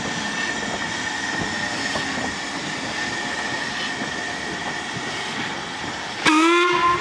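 Ivatt 2-6-0 steam locomotive 46447 running slowly past with a steady hiss and a faint steady high tone. About six seconds in there is one short, loud toot on a steam whistle.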